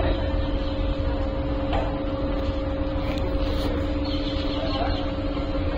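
A steady mechanical hum: two held tones over a constant low rumble, with no clear change.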